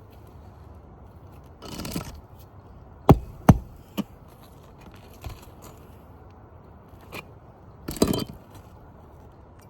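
Roofing tools working on asphalt shingles. There is a scrape, then three sharp knocks about half a second apart, a couple of fainter knocks, and another scrape near the end.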